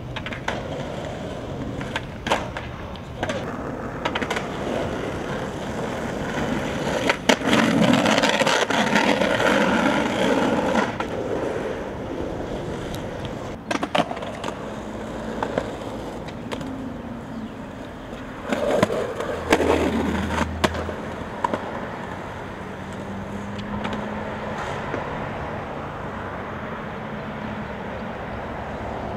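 Skateboard wheels rolling on street asphalt, with several sharp clacks of the board snapping and landing.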